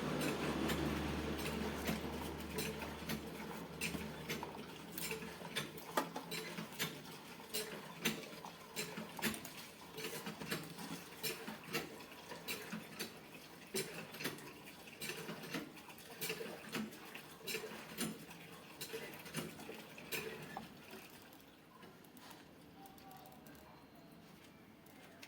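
Irregular small clicks, taps and scrapes of hard objects being handled, several a second, thinning out and growing quieter after about 21 seconds.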